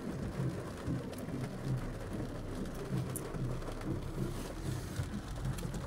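Rain pattering on a car, heard from inside the cabin, over the low, pulsing hum of the car's idling engine.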